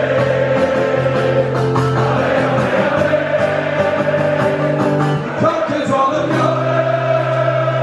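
A large crowd singing a football chant together, many voices holding the notes, over an acoustic guitar.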